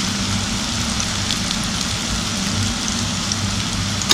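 Sliced nendran banana frying in ghee in a pan: a steady sizzle with a few faint crackles.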